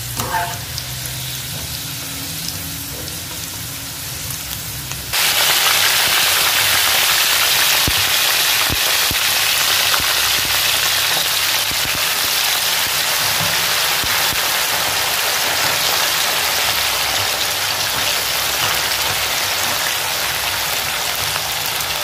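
Hot oil sizzling as potato chips deep-fry in a pan. About five seconds in, the sizzle suddenly jumps much louder as a fresh batch of raw potato strips goes into the oil, then holds as a dense, steady sizzle.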